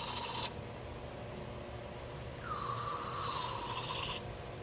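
Aerosol contact cleaner sprayed onto ignition coils in two bursts of hiss: one ending about half a second in, a second, longer one of nearly two seconds starting about halfway through, cleaning oxidation off the coils.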